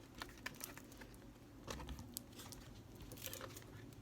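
Faint paper rustling with a few small clicks and taps, as the pages of a picture book are handled and turned.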